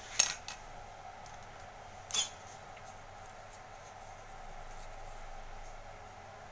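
Sharp clicks and knocks of plastic toner-cartridge parts being handled and set down on a stone countertop: a quick cluster of clicks at the start and one more knock about two seconds in, over a faint steady hum.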